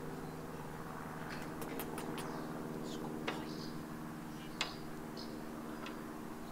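A steady low mechanical hum, several pitches held at once, with a few sharp clicks about two, three and four and a half seconds in and faint short high chirps.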